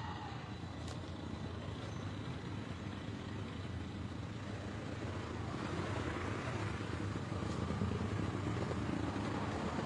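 A steady low rumble of background noise, growing a little louder about halfway through.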